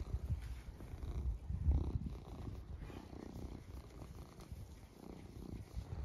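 Tabby-and-white domestic cat purring right against the microphone, a low pulsing purr that carries on throughout.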